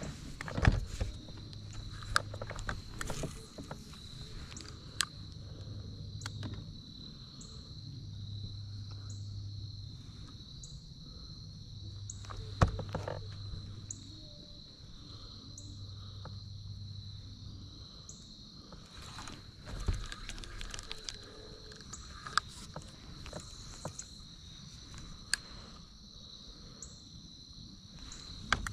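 Steady high-pitched insect chorus, with a low hum that comes and goes in stretches of a second or two and scattered clicks and knocks, the sharpest two about 12 and 20 seconds in.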